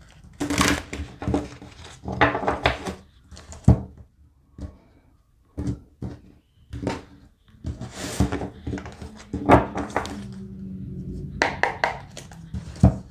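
A deck of tarot cards being shuffled by hand and spread across a tabletop: a run of quick riffling and slapping noises, with a few sharp knocks where the cards strike the table.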